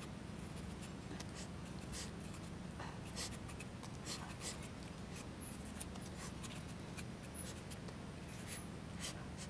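Kitchen knife slicing through a crisp star fruit held in the hand: irregular short crisp clicks and scrapes as the blade cuts the juicy flesh.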